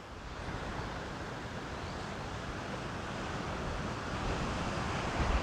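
Wind on the microphone, a steady rush that slowly grows louder, with heavier low buffeting near the end.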